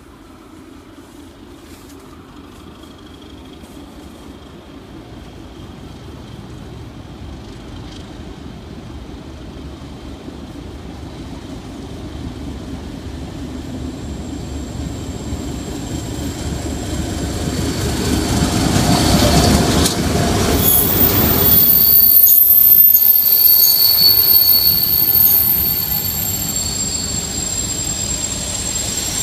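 ČD class 749 diesel locomotive approaching and passing with a train of double-deck coaches. Its engine grows steadily louder for about twenty seconds and peaks as it goes by. As the coaches roll past, their wheels squeal in high, steady tones.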